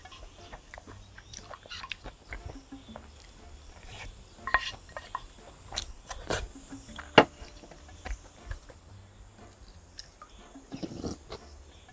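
Close-miked eating sounds: a wooden spoon scraping and clicking against a ceramic bowl, with slurping and chewing between the strokes. The loudest click comes about seven seconds in.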